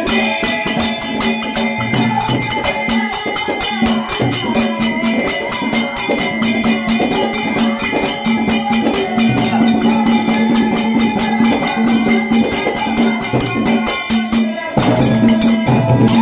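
Live folk ensemble music: a two-headed barrel drum played by hand and jingling hand cymbals keep a fast, steady beat under a held melody line. The music grows fuller and louder near the end.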